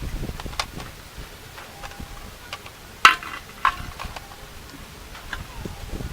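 Clinks and knocks of cooking utensils and dishes being handled. The sharpest is a ringing clink about three seconds in, with a smaller one half a second later.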